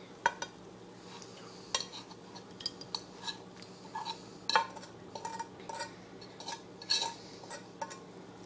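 Metal spoon scraping and knocking against a cast-iron skillet as scrambled eggs are scraped out onto a plate: a string of irregular short clinks and scrapes.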